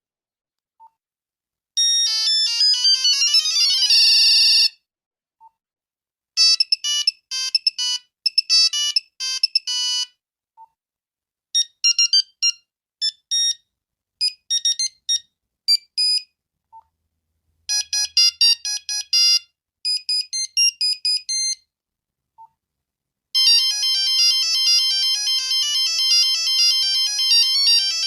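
Nokia 5110 monophonic ringtones playing in turn: high-pitched electronic beeping melodies. A short sweeping phrase comes about two seconds in, then several runs of quick beeped notes with brief pauses between them, and a longer unbroken melody starts near the end.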